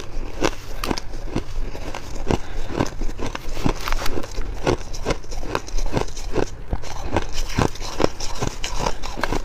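Shaved ice being chewed and scooped with a metal spoon, close-miked: a quick, irregular run of crisp crunches, a few a second.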